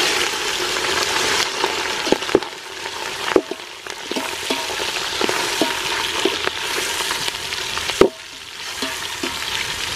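Minced mutton (keema) sizzling in hot oil in a metal pot, stirred with a slotted steel spoon. The spoon clinks against the pot a few times, loudest about eight seconds in.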